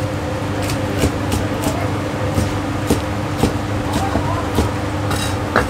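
Chinese cleaver slicing char siu against a thick wooden chopping block: sharp, irregular knocks about twice a second. A steady low hum runs underneath.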